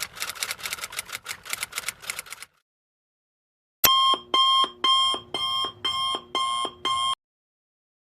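A rapid run of sharp clicks, like typewriter keys, for the first couple of seconds. Then, after a short gap, an alarm clock sound effect goes off in seven pulses, about two a second, and stops abruptly.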